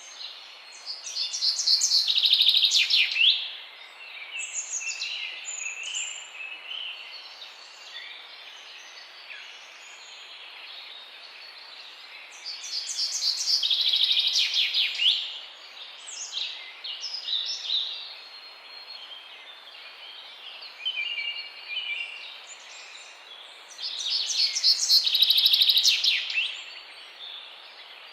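Songbirds singing. One loud trilled song phrase comes three times, about every eleven seconds, with fainter chirps from other birds between, over a steady background hiss.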